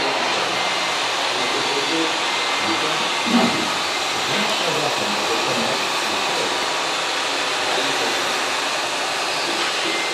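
Scale RC hydraulic excavator (a Komatsu PC290 LC model) running with a steady whirring hiss from its hydraulic pump as it digs and swings its bucket. There is a brief louder knock about three and a half seconds in.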